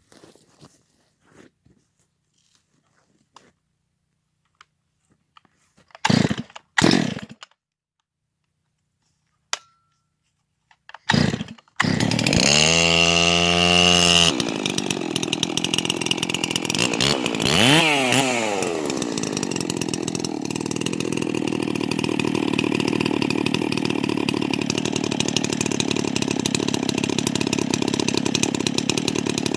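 Holzfforma G366 two-stroke chainsaw, a clone of the Stihl MS361. After a few short noises it starts about twelve seconds in, runs briefly at a lower pitch, then is throttled up to high revs, with one dip and recovery in pitch a few seconds later.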